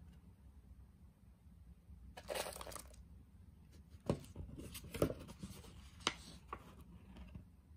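The peeled-back paper-and-foil lid and the paper cup of an instant noodle cup being handled. There is a soft crinkling rustle about two seconds in, then a few light clicks and taps.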